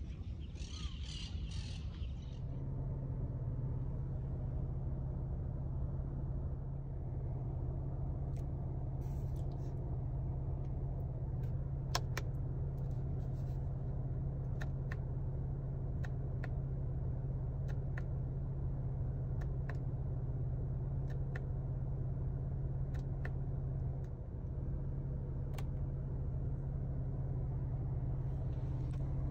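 Cadillac CT4-V Blackwing's twin-turbo V6 running at a steady pitch, heard from inside the cabin as an even drone, with a few sharp clicks scattered through it.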